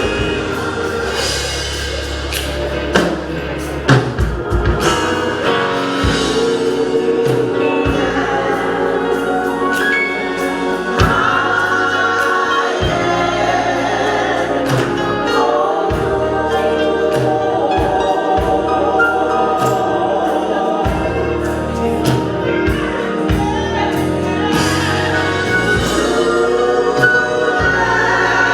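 Gospel choir singing with band accompaniment: a bass line under the voices and regular drum hits.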